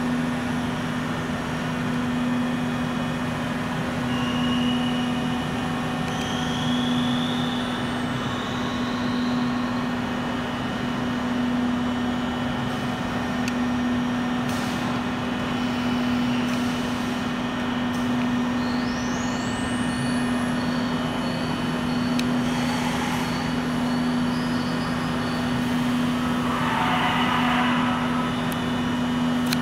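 Steady low mechanical hum, with faint high whistling tones that glide upward now and then.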